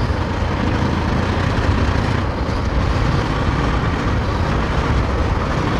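Steady road noise from a Bajaj Pulsar NS200 motorcycle on the move in city traffic: wind rushing over the microphone mixed with the running engine, with no distinct events.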